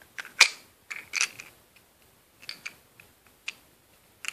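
About a dozen irregular sharp clicks and taps from a small black plastic coin-magic prop being handled in the hands. The loudest click comes about half a second in, with a cluster around a second in and sparser clicks after.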